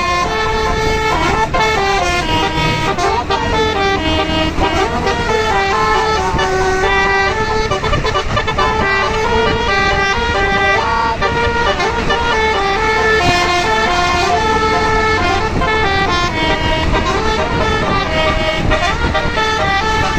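A bus's basuri multi-tone (telolet) horn playing a melody, one held note stepping to the next with barely a break.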